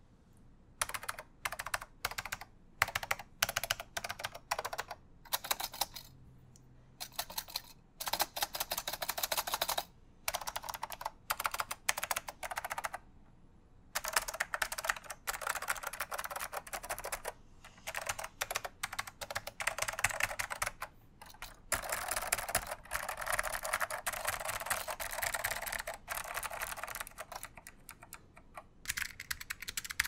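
Typing on a vintage beige full-size mechanical keyboard with clicky switches: fast runs of sharp key clicks broken by short pauses.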